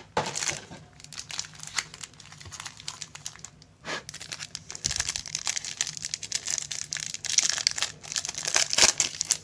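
Foil pack of Bowman baseball cards being torn open and crinkled by hand: a dense crackling that grows stronger in the second half, with a sharp tear near the end.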